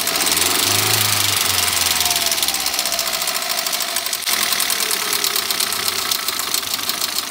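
Kia Morning's LPI (LPG-injected) engine idling with about 320,000 km on it, with a fast, even rattling tick over the running engine. The engine is shaking, which the mechanic suspects comes from a failed ignition coil.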